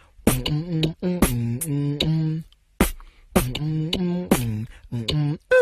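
A man beatboxing: sharp mouth clicks and snare-like hits in a steady rhythm, alternating with short hummed bass notes. Right at the end a falling pitched sound begins.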